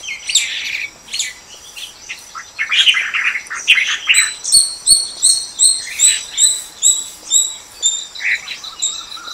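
Birds calling: scratchy chattering calls at first, then from about halfway a rapid series of high, evenly repeated notes, about three a second, that trails off near the end.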